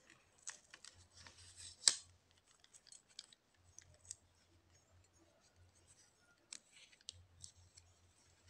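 Masking tape pulled off its roll and pressed around a bundle of plastic brush pens, with light clicks of the pen barrels knocking together. There is a sharp crackle of tape about two seconds in.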